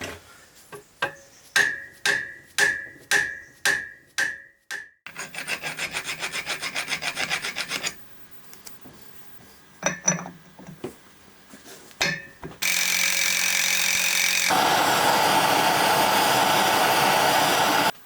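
About six ringing hammer blows on metal, then fast rhythmic rasping strokes for about three seconds, and a couple of single knocks. Near the end comes a loud steady noise from a tool that shifts in tone partway through.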